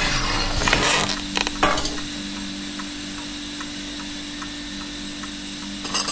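Kitchen sounds: a hissing sizzle of frying, with a few clicks, dying away in the first second or two. After that comes a steady low hum with soft, even ticks about three a second.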